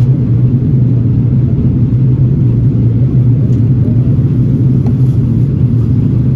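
Cabin noise inside an Airbus A330-900neo in flight: a steady low drone from its Rolls-Royce Trent 7000 engines and the airflow over the fuselage.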